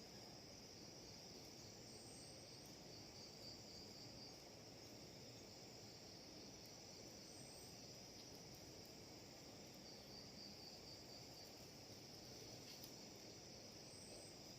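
Faint steady chirring of night insects, a high continuous trill that pulses slightly in places, over low background hiss.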